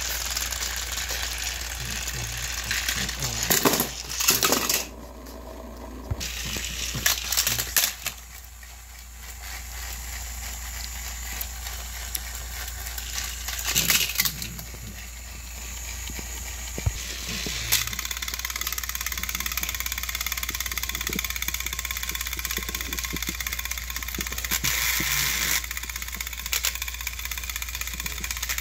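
Battery-powered Thomas & Friends toy train engines running on plastic track: a steady whirring rattle, with a few sharp clacks.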